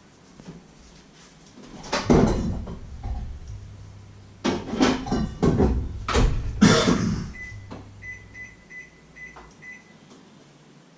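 Kitchen clatter: a loud knock about two seconds in, then a run of knocks and rattles, like cupboards and cookware being handled. Near the end come about five short, evenly spaced high electronic beeps.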